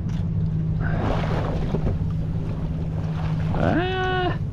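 Boat's motor idling with a steady low hum under wind and water noise. Near the end comes a short cry that rises in pitch and then holds.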